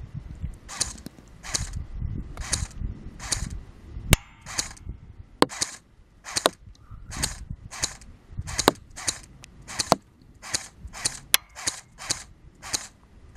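Spartac SRT-13 AK airsoft electric rifle firing single shots in quick succession, about one to two a second, each shot a short mechanical snap from the gearbox. Five sharper, thinner cracks fall among them, the BBs striking the cardboard target.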